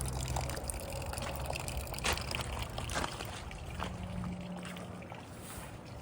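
Rainwater trickling and dripping, with irregular drip taps scattered through it.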